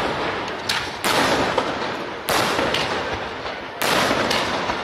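Aerial firework shells bursting: about five sharp bangs, two of them close together about a second in and two more close together near the end, each trailing off in a long fading echo.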